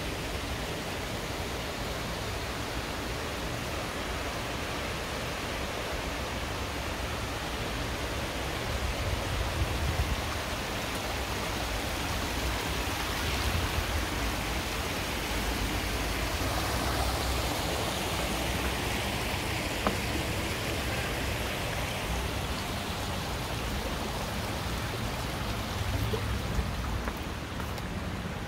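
Stream water rushing steadily, an even hiss of flowing water.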